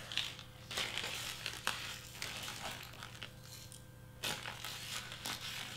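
Crinkling and rustling of a plastic zip-top bag of glitter, with small clicks and scrapes of a plastic scoop, in irregular handling noises; it goes quieter about three seconds in, then a sharper rustle comes just after four seconds.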